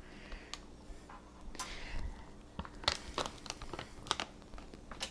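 Light scattered clicks and short crinkling rustles of a spice container and measuring spoon being handled as chili powder is measured out.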